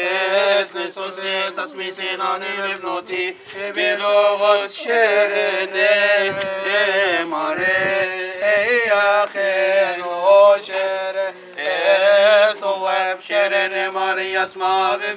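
Male voice chanting a Coptic Orthodox liturgical hymn, slow melismatic phrases of long held notes with wavering ornaments, broken by short pauses for breath.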